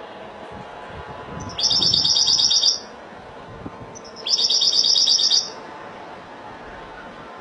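European goldfinch singing in a cage: two short, rapid trilled phrases of about a second each, a second and a half apart.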